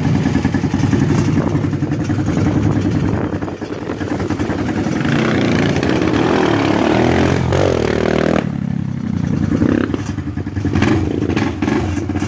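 Dirt bike and Honda sport quad engines running together. About five seconds in, one revs up and pulls away, its pitch rising and then dropping off at about eight and a half seconds.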